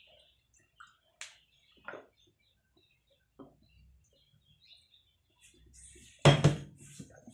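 Steel kitchen containers and utensils being handled on a shelf: a few light clicks and knocks, then one much louder clatter about six seconds in.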